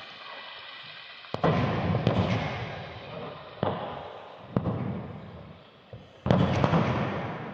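Jaw rock crusher running with a steady hum, then rock cracking and crunching between its jaws: four sharp cracks, the loudest about a second in and near the end, each followed by a spell of grinding and rattling.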